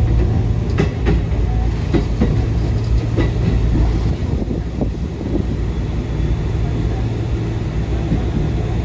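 Kotoden electric train running on the Kotohira Line, heard from inside the cab: a steady low running hum, with the wheels clicking in quick pairs over rail joints three times in the first few seconds.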